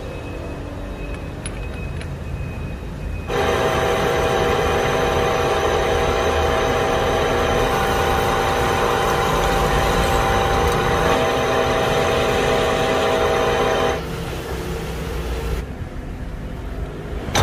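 Mitsubishi engine lathe drilling a small metal sleeve held in its three-jaw chuck, the drill fed from the tailstock under coolant. The cut gives a loud, steady ringing whine of several fixed pitches that starts suddenly about three seconds in and stops abruptly about fourteen seconds in, with a lower machine rumble before and after.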